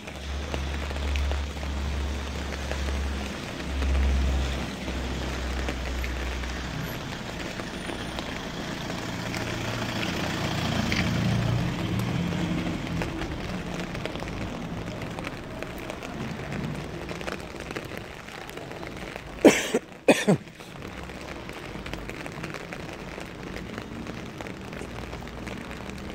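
Steady rain falling. A low rumble swells and fades around the middle, and two sharp knocks, under a second apart, stand out about two-thirds of the way through.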